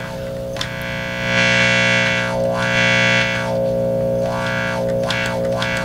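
A steady, distorted buzzing amp tone passing through a DeArmond 1802 Weeper wah pedal, its filter sweeping up and down several times so the tone brightens and darkens. The pedal is working again now that its battery connection is fixed.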